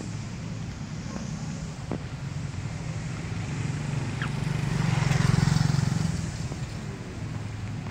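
Traffic engine rumble, with a motor vehicle passing close: its noise swells about halfway through and then fades away.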